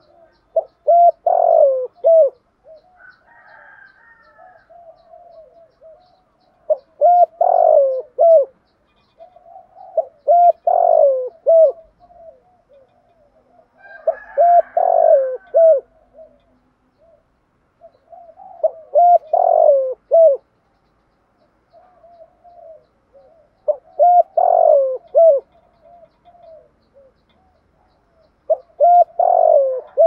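Spotted dove cooing: a short phrase of several low coos, repeated seven times about every four to five seconds, with softer coos between the phrases.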